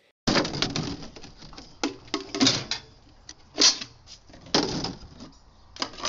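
Plastic bottles being handled and punched with holes: irregular sharp clicks, crackles and knocks of plastic, some louder than others.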